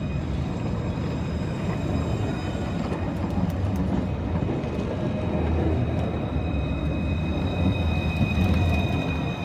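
Montpellier Line 1 tram passing close by at low speed: a low rumble of wheels on the rails, overlaid with a steady high whine. It grows a little louder near the end.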